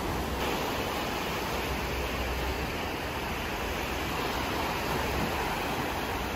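Small waves breaking and washing up over a dark sand and rock beach: a steady rush of surf.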